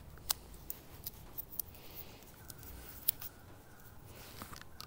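Quiet handling of a roll of white electrical tape, with faint rustling and a few small clicks as tape is pulled off the roll by hand.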